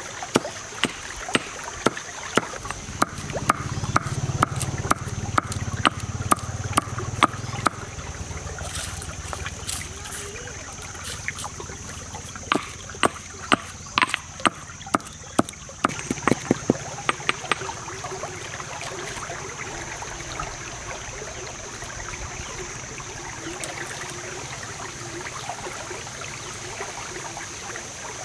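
Stone pestle pounding whole spices in a stone mortar: sharp knocks at about two a second, pausing for a few seconds, then resuming and stopping about two-thirds of the way through. Shallow stream water runs throughout.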